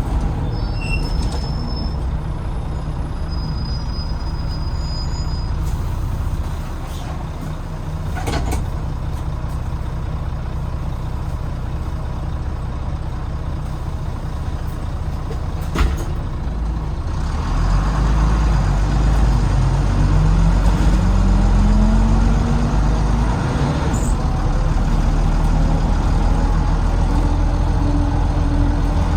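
Volvo B9TL double-decker bus with its Volvo D9B diesel engine, heard from the back seat. For the first half it runs quietly, with two sharp clicks. About halfway through the engine note grows much louder as the bus accelerates, and a whine climbs in pitch over a few seconds. This is the unexplained noise heard on every acceleration; the owner wonders about the gearbox, cooling fan or axles.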